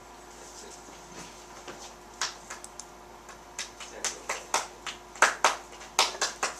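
A small audience clapping: a few scattered claps begin about two seconds in, then build into denser applause.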